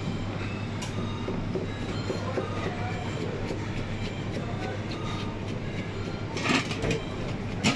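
Steady machinery hum and rumble of a commercial kitchen, with two sharp knocks near the end.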